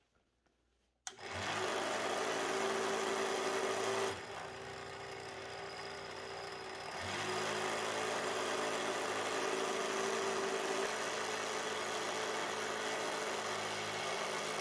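Homemade scroll saw driven by a small DC motor, switched on about a second in and running steadily with its blade reciprocating. It drops to a quieter, slower run for about three seconds, then comes back up as the speed is turned up on the power supply's speed knob, and cuts off at the end.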